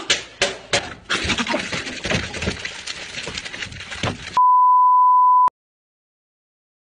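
Fast, messy wet chomping and slurping as a man eats into a watermelon face-first. This is followed by a loud, steady beep tone lasting about a second that cuts off suddenly.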